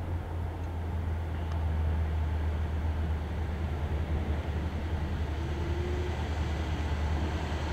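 Vehicle engines of a slow convoy of trucks and police escort cars approaching, a steady low rumble.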